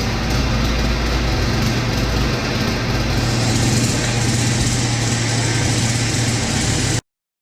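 Small 50cc two-stroke engine of a Fit Right FRP DB002 mini bike running at a steady speed, then stopping abruptly about seven seconds in.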